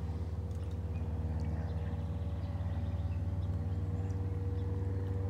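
A boat's motor running at a steady speed, a low even drone with a fast regular pulse.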